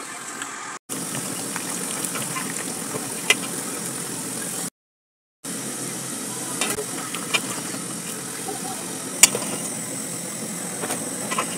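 Potato chips deep-frying in a pot of oil: a steady sizzle, broken off briefly near the middle, with a few sharp clicks.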